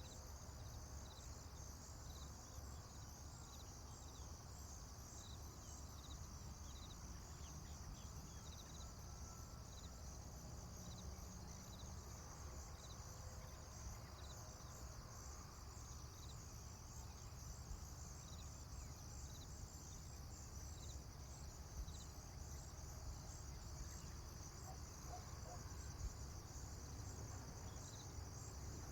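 Faint rural ambience: insects chirping steadily in a dense high chorus, with a low rumble underneath.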